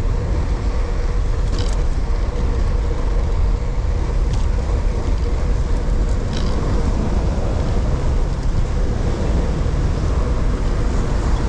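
Wind buffeting the action camera's microphone, mixed with road and traffic noise while riding a bicycle. A faint steady hum runs underneath, with a few brief clicks.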